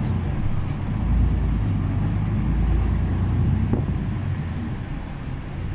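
Keio city bus in motion, heard from inside the passenger cabin: a steady low rumble of engine and road noise that eases a little near the end.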